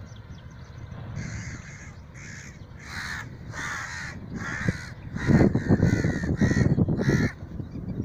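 Crows cawing repeatedly, about ten caws in a row starting about a second in and stopping near the end, with a low rumble under the later caws.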